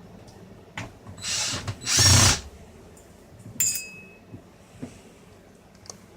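Cordless power screwdriver driving a screw into the radio housing in two short bursts, followed by a sharp metallic clink a little over a second later.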